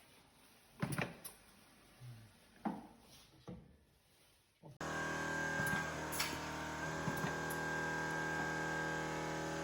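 A few separate knocks and clicks, then about five seconds in a piston filling machine for miso starts up suddenly with a loud, steady hum of several tones.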